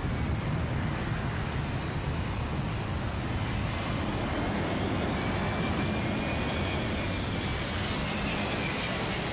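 Jet engines of a wide-body trijet airliner on final approach: a steady roar with a faint high whine that rises slightly near the end.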